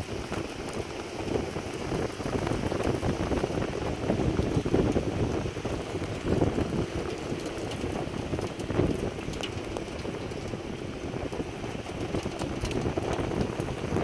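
Rain falling steadily, with wind gusting on the microphone.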